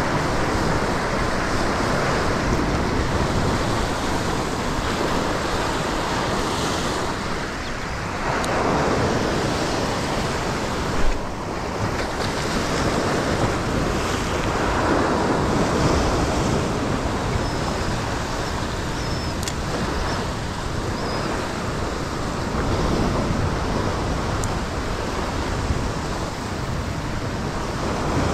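Ocean swell surging and washing over a rock ledge, rising and easing every few seconds. A single sharp knock about eleven seconds in.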